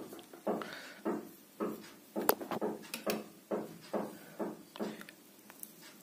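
Soldering work on a ceiling fan stator's lead-wire joint: a run of soft clicks and taps, about two or three a second, that die away near the end.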